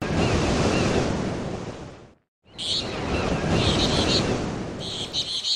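Nature ambience: a steady rushing noise with birds chirping. It fades out about two seconds in, and after a brief silence the rush returns with bursts of high chirping.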